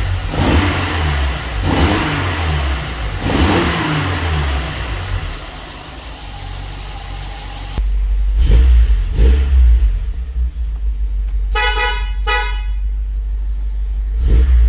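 Alfa Romeo Arna's flat-four boxer engine, freshly started, revved in three quick blips under the bonnet, then heard from the cabin running at about 1000 rpm with a couple more blips. About two-thirds of the way through the car's horn toots twice briefly.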